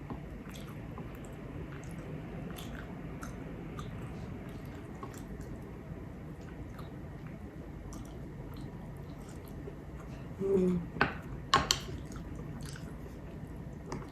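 A person chewing a mouthful of soft chicken and broccoli casserole, with small wet mouth clicks scattered throughout. About ten seconds in come a short voiced hum and a couple of sharper clicks.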